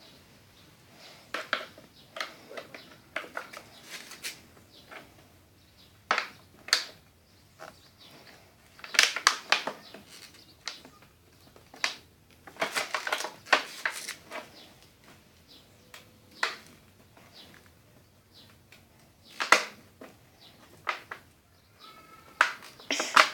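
Irregular handling noises on a child's bicycle: scattered clicks, taps and plastic crinkling as a piece of plastic is fitted to the frame beside the wheel, with two longer bursts of rustling partway through.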